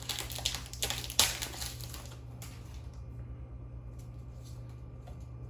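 Foil booster-pack wrapper crinkling and tearing open, with several sharp crackles in the first couple of seconds, then only faint ticks of cards being handled, over a steady low hum.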